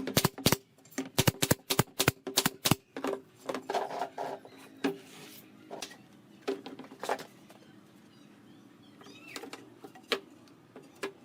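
Sharp knocks of hammer blows on wood: a quick run of about four strikes a second for the first few seconds, then scattered single taps.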